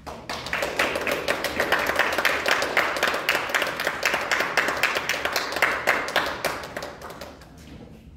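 Audience applauding. It starts abruptly and dies away about seven seconds in.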